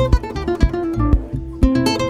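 Background music: a plucked-string melody of quick, sharply struck notes over low bass notes.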